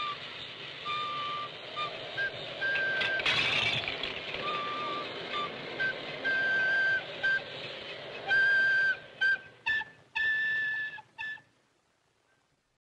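A flute plays a slow tune of long held high notes, moving between two or three pitches, then a run of short notes before it stops near the end. About three seconds in, a brief clatter of a stacked toy tower falling.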